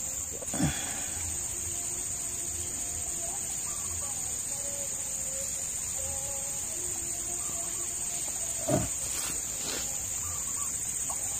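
Steady, high-pitched insect chorus shrilling without a break, with faint wavering tones below it. Two brief noises stand out, one just after the start and a louder one near nine seconds.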